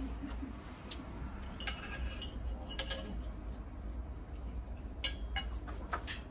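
Cutlery clinking against a plate during a meal: a handful of light, sharp clicks, the sharpest about five seconds in, over a low steady hum.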